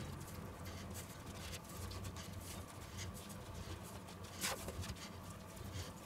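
Fingertips pressing and patting sticky pizza dough out on a floured wooden board: faint, soft, irregular pats and rubbing, with one sharper tap about four and a half seconds in.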